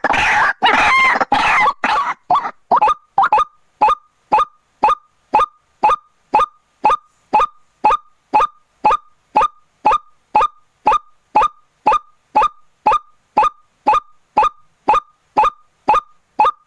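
White-breasted waterhen calling: a harsh, croaking run for the first two seconds or so, then a long series of short single notes repeated evenly, about two a second.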